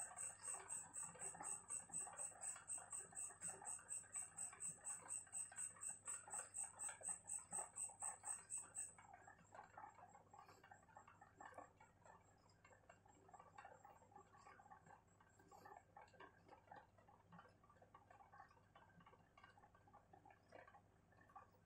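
Ballpoint pen scratching faintly on notebook paper during writing. For the first nine seconds a high, pulsing chirp repeats evenly, about three and a half pulses a second, then stops.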